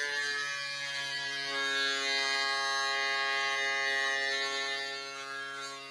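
Small pen-style rotary tool running at a constant speed with a steady humming whine as its white grinding bit shaves plastic from an action figure's joint. The hum grows fainter near the end.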